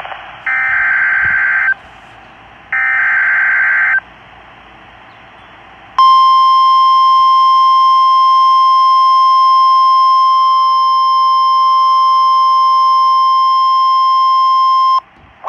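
NOAA Weather Radio alert signals. First come two buzzy digital SAME header data bursts, each a little over a second long and a second apart. Then, about six seconds in, the steady 1050 Hz warning alarm tone sounds for about nine seconds and cuts off sharply, signalling that a warning (here a severe thunderstorm warning) follows.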